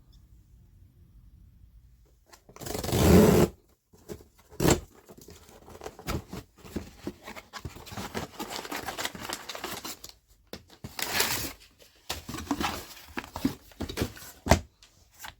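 Retail packaging of a blade sharpener being torn open by hand: loud ripping of cardboard or plastic about three seconds in and again about eleven seconds in, with rustling, crinkling and scattered clicks and knocks between.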